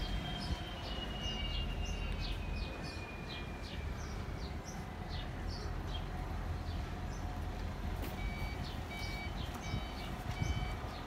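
Steady low engine rumble with small birds chirping over it. About eight seconds in, a reversing beeper starts, beeping about once a second.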